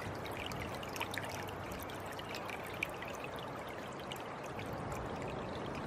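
Steady rushing outdoor background noise, with faint short high chirps and ticks scattered throughout.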